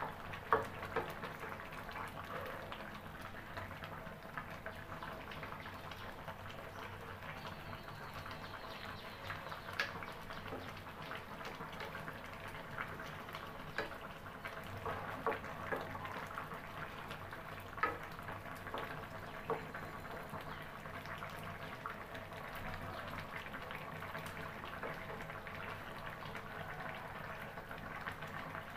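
Fish and vegetable curry simmering steadily in a metal pan, with occasional short clicks of a wooden spatula against the pan as it is stirred.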